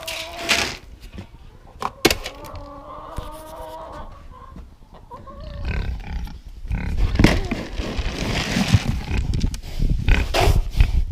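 Farm animals calling, with one drawn-out wavering call about two seconds in. In the second half come louder rustling and knocking noises.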